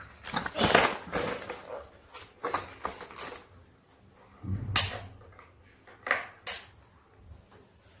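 Plastic toy parts and cardboard packaging being handled as a toy gun set is taken out of its box: a run of rustling and clattering, then a knock about halfway through and two sharp clacks a little later.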